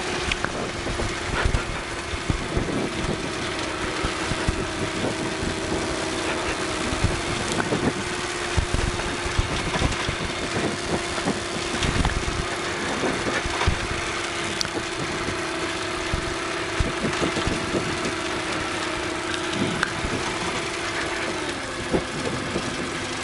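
Tecnam P92 Eaglet's Rotax 912 flat-four engine running steadily at low ground power, its note dropping slightly near the end, with scattered light knocks.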